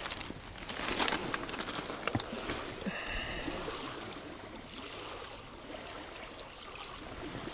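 Water lapping and splashing as a steady wash of noise, with a few small knocks and a brief higher-pitched sound about three seconds in.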